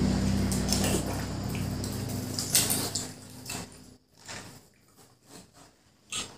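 Metal spoons scraping and digging into halved watermelons, scooping the flesh against the rind in a series of short scrapes and clicks. Low steady background music fades out in the first three seconds.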